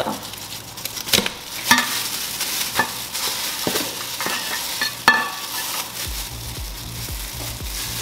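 Plastic-gloved hands handling raw chicken drumsticks and cutting them with kitchen shears: a crinkling, wet rustle with several sharp snips. Background music with a low beat comes in about six seconds in.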